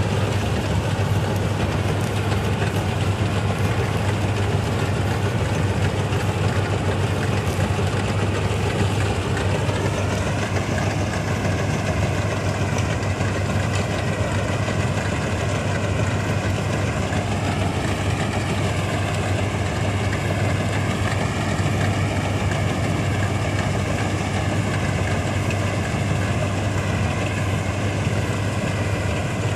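1965 Ködel & Böhm Köla Combi Special combine harvester running steadily with a deep hum. From about a third of the way in, a higher whine joins it and wavers gently in pitch.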